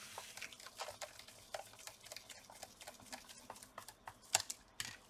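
Faint, irregular light clicks and taps from a laptop being handled, with one sharper click a little over four seconds in.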